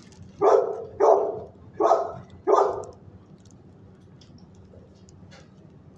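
A dog barking four times in quick succession, the barks evenly spaced and all finished within about three seconds.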